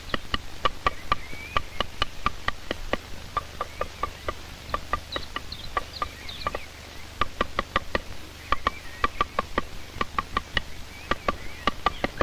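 Woodpecker chiselling at wood to excavate its nest hole: sharp, irregular taps, about three or four a second, with two short pauses. Faint bird chirps sound behind them.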